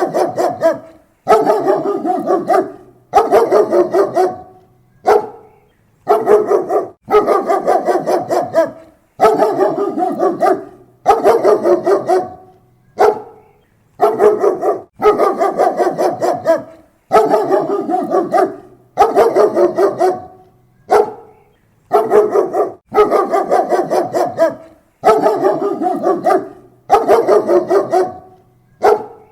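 German Shepherd barking close up, loud, in repeated runs of quick barks, one run about every two seconds.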